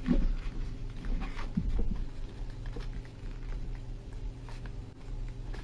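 A sheet of white paper being folded and creased by hand, with soft rustles and small crackles. A steady low hum runs underneath.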